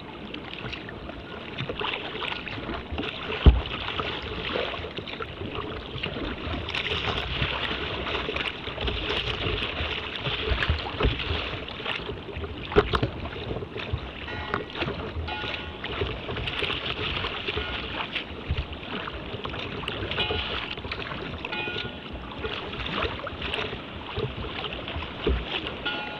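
Choppy sea water splashing and sloshing against the hull of a sea kayak under way, an uneven rushing wash. A sharp knock stands out about three and a half seconds in.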